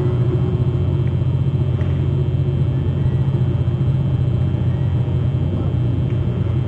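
Speedboat engine running with a steady low drone.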